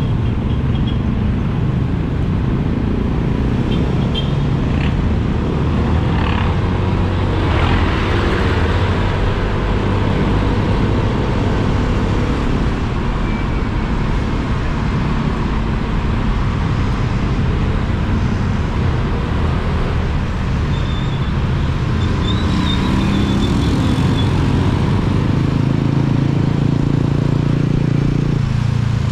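Motorcycle engine running under way, heard through wind and road noise, its note shifting up and down with throttle and speed.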